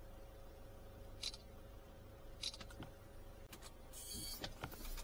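Smartphone camera shutter sound, two short shots about a second apart as photos are taken, then several clicks and a brief rustle near the end as the phone is handled and set into its dashboard holder.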